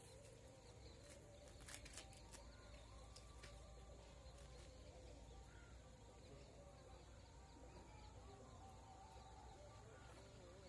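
Near silence with faint birds calling in the distance. A few faint clicks come about two seconds in.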